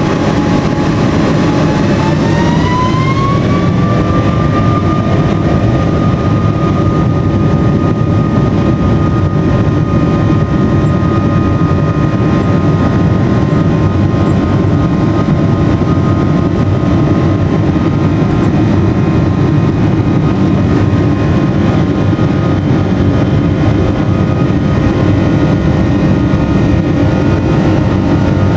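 Boeing 777 jet engines heard from inside the cabin spooling up to takeoff thrust as the aircraft rolls down the runway. A whine rises in pitch from about two to four seconds in, then holds steady over a loud, even rumble.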